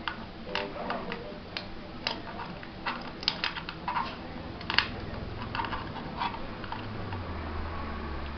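Irregular small clicks and cracks of plastic 3D-print support material being picked and snapped off a printed part by hand. A low hum comes up near the end.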